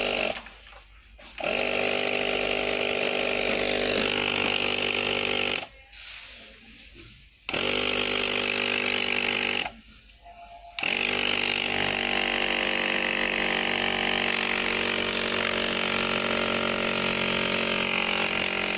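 12-volt mini air compressor running with a steady motor buzz. It cuts out and restarts three times in the first eleven seconds, then runs without a break. The dropouts come with a loose cigarette-lighter plug connection.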